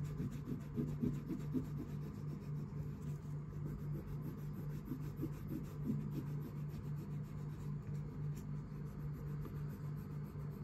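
Colouring pencil rubbing back and forth on paper in quick, continuous shading strokes, over a steady low hum.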